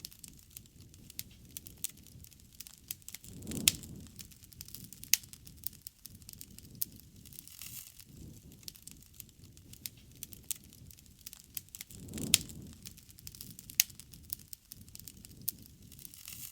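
Wood campfire crackling and popping, with frequent sharp snaps over a low, soft rush of flame. Two louder low surges come about a third of the way in and near three-quarters.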